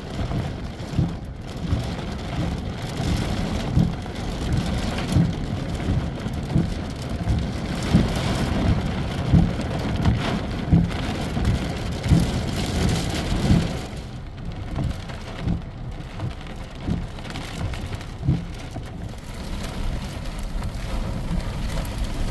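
Heavy rain falling, with many short, irregular knocks.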